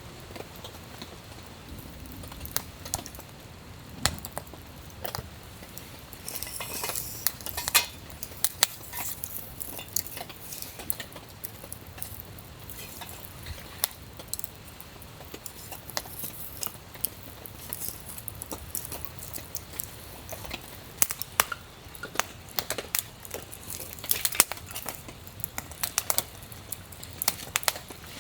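Camp gear being handled: scattered small clinks and knocks of metal utensils and cookware, with brief rustling about six seconds in and again near the end.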